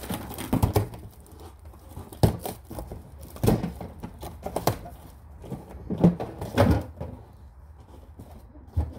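Handling noise from unpacking: a plastic water-filter dispenser and its packaging being lifted and moved about, giving a series of irregular knocks and clatters with rustling between them.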